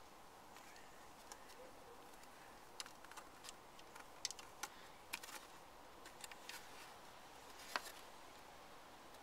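Scattered light clicks and taps of hard plastic parts being handled: a plastic alarm box base and its battery pack being fitted together. The sharpest click comes near the end.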